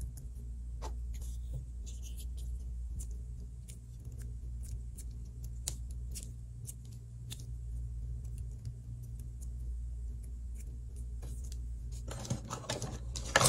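Scattered light clicks and taps of fingers handling modelling dough and a plastic mould. Near the end comes a louder, crackly squishing and plastic creaking as the dough is pressed into the plastic cat-shaped mould, over a steady low hum.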